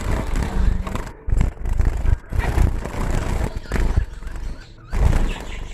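Irregular knocking, bumping and rustling of a hand and phone against a bird cage while trying to catch a zebra finch.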